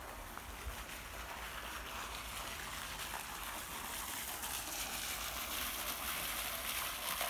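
Running water: a steady rushing that slowly grows louder.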